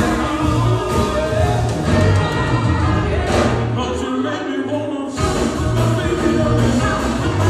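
Live band playing with a man singing into a microphone, over a steady drum and bass beat. The bass and drums drop out for about a second and a half halfway through, then come back in.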